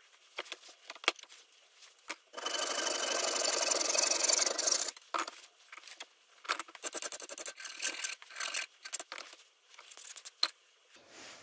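Metal scraping and clicking at a steel bench vise as steel pieces are set between the jaws and the vise handle is turned: a steady scrape for about two and a half seconds about two seconds in, then scattered clicks and short scrapes.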